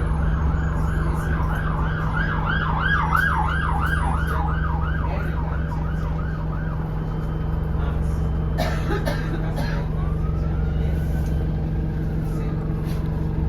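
An emergency vehicle siren yelping in quick up-and-down sweeps, about two a second, fading out about seven seconds in, over the steady low drone of a single-deck bus's engine. A sharp click comes later, and near the end a single slow rising and falling tone.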